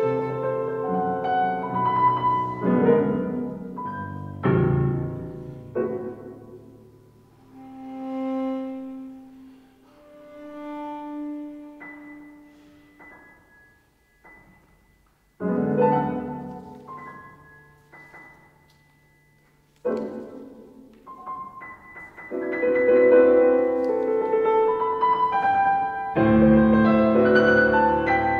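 Cello and piano playing a slow contemporary chamber piece: struck piano chords left to ring and die away, soft held notes that swell and fade, and a short near-silent pause a little before halfway. Both build to louder, fuller playing near the end.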